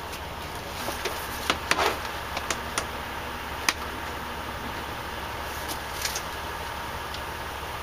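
A scatter of small clicks and knocks, most between one and four seconds in and a few more around six seconds, as parts are handled, over a steady low hum.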